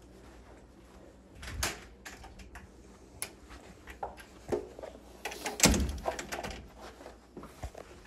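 A door being opened and shut as someone walks through it, with scattered knocks and clicks. The loudest is a single thud about two-thirds of the way in.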